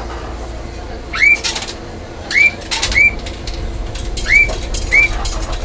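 A bird calling five times at uneven intervals, each call a short rising chirp, over a low steady hum of the standing tram.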